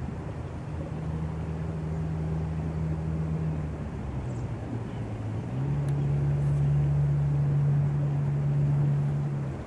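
An engine running at a steady pitch. It dips lower about four seconds in, picks up and runs louder from about five and a half seconds in, and fades out near the end.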